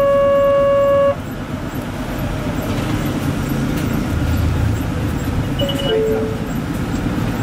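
Traffic rumbling at a street-running tram stop. The loudest sound is a steady horn-like tone lasting about a second at the start. A short beep follows about six seconds in.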